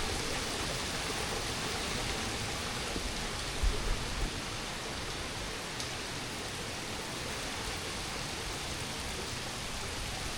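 Steady rushing hiss of water falling into the Gaping Gill pothole, with a brief low buffet of wind on the microphone a little under four seconds in.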